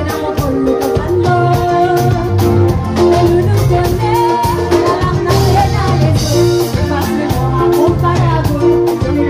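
Live band playing through a PA: a steady drum-kit beat with guitar and keyboard, and a singer's voice over it.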